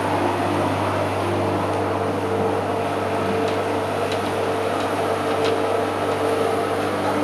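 Lawn mower running steadily as it is pushed across the grass, a constant motor hum with a steady pitch.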